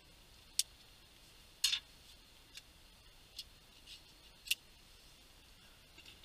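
A knife working at a small packet: about six short, sharp clicks, with a brief scrape about a second and a half in.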